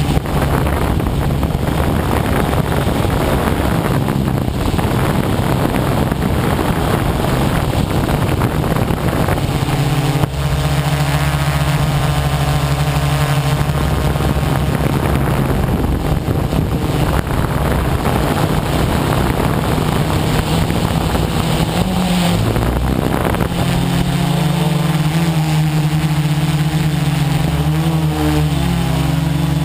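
Quadcopter's electric motors and propellers running close up: a steady buzz over a heavy rushing noise, its pitch shifting briefly with a throttle change about three-quarters of the way through.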